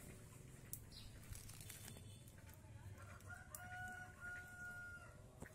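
A rooster crowing faintly: one drawn-out call starting about three seconds in, over a low steady hum.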